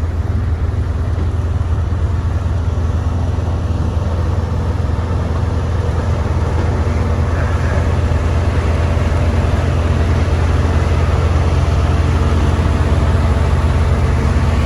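Motor grader's diesel engine running steadily with a deep rumble, growing a little louder in the last few seconds.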